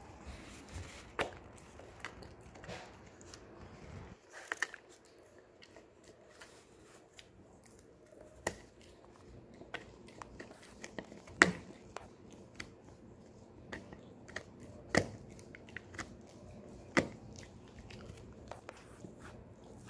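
Shetland sheepdog gnawing on a cow horn: irregular sharp cracks and scrapes of teeth on hard horn, with a few louder cracks in the second half.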